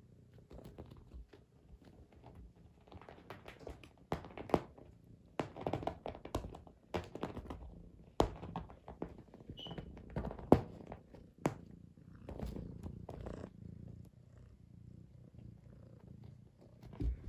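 Tabby cat purring close by, the rumble swelling and fading in repeated cycles. A few sharp clicks or taps sound over it, the loudest about ten seconds in.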